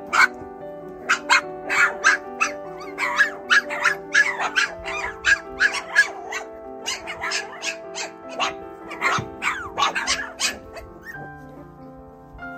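Four-week-old mini goldendoodle puppies yipping and barking in quick succession, many short high calls, over background music with sustained notes. The yips stop about eleven seconds in while the music carries on.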